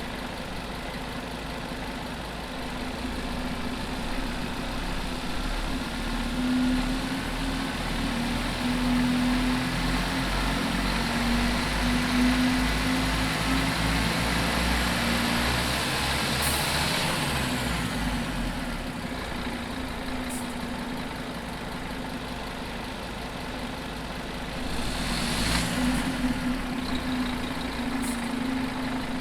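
Scania OmniCity bus diesel engine running, echoing inside a large metal shed; it grows louder for about a dozen seconds, then eases back. A sudden air hiss with a falling whistle breaks in about two-thirds of the way through, and a second hiss comes near the end.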